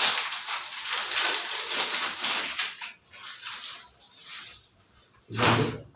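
Rustling and crinkling as a photo-studio umbrella is taken out of its packing and handled, densest in the first three seconds, then in fainter scattered bits.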